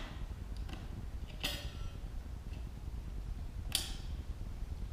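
AA batteries being pried out of a Yale door lock's battery holder: a few light clicks and clacks. The loudest comes about a second and a half in with a brief ring, and another sharp one near four seconds.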